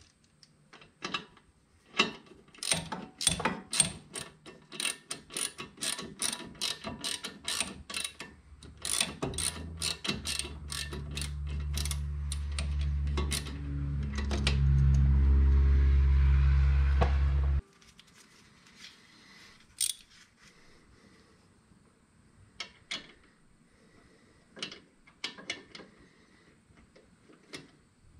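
Socket ratchet clicking in quick runs while the new rear wheel hub's mounting bolts are threaded in from behind the knuckle. From about ten seconds in, a loud low hum that steps up in pitch drowns it out, then cuts off abruptly; after that there are only scattered clicks.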